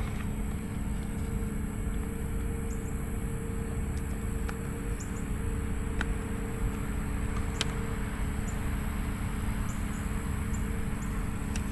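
A steady mechanical hum with a low rumble under a high, steady insect drone. A few faint sharp clicks are scattered through it.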